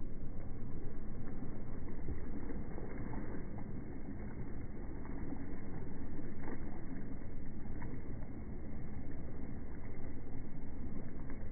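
Low, muffled, steady rumble of a tour boat's motor and wind, slowed down and deepened by slow-motion playback, with a few faint ticks.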